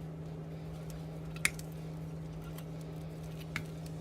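Wire cutters snipping through old headlight wiring: one sharp snip about a second and a half in and a faint click near the end, over a steady low hum.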